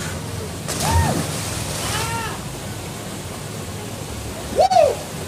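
A person jumping feet-first into a cold gorge pool, with a splash about a second in, over the steady rush of a small waterfall. Short whooping cries, rising then falling in pitch, come around the splash, and a louder cry comes near the end.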